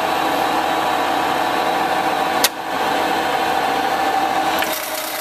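Toolmex TUR 630M engine lathe running under power: a steady hum from its gear drive with a clear whine. A sharp click sounds about halfway, and near the end another click as a control is moved, after which the whine drops away.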